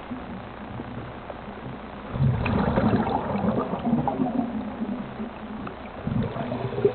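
Scuba diver's regulator breathing heard underwater: a quieter stretch, then a burst of exhaled bubbles gurgling from about two seconds in, and another near the end.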